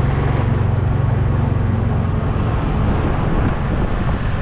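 Golf cart driving along a street: a steady low hum and road noise from the moving cart, a little stronger in the first couple of seconds.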